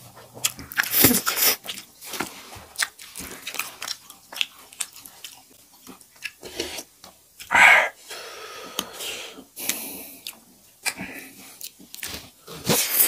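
Two people eating spicy instant noodles: slurping and chewing, with forks clicking and scraping on steel plates. One longer, louder slurp comes about eight seconds in.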